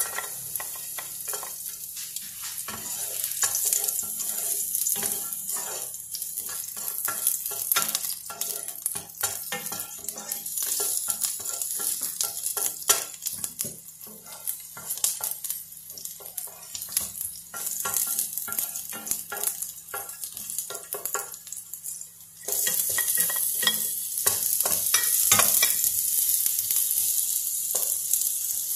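Garlic and onion frying in oil in a nonstick frying pan, sizzling, while a wooden spoon stirs and scrapes the pan with many small clicks. The sizzle turns suddenly louder about three-quarters of the way through.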